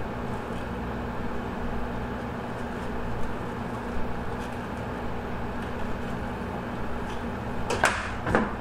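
A steady low machine hum, with a couple of soft knocks and, near the end, a brief scraping rustle as a bass is handled on a stainless steel table.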